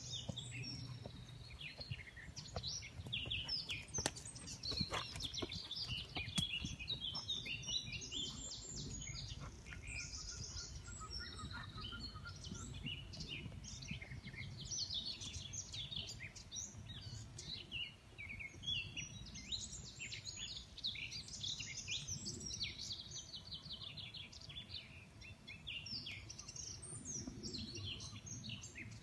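Many songbirds singing together, a steady mix of chirps and trills, over a low rumble. A few sharp clicks come about four to six seconds in.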